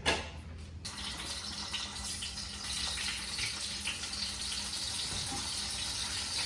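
Sweet potato pieces frying in hot oil: a steady sizzle that starts about a second in, after a short knock, and grows a little louder partway through.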